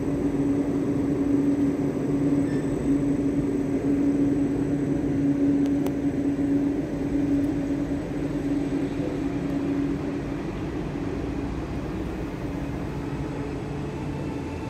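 A vehicle running with a steady humming tone over a rushing noise. The hum fades about ten seconds in as the sound eases off.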